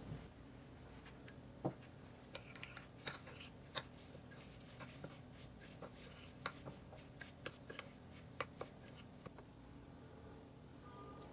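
A metal spoon stirring damp breadcrumbs in a ceramic bowl: faint, irregular clicks and scrapes as the spoon knocks and drags against the bowl.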